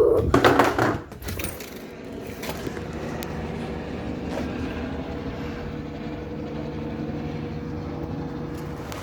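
A helicopter droning steadily overhead, with a steady engine-and-rotor tone. A few loud, sharp sounds come in the first second before the drone settles.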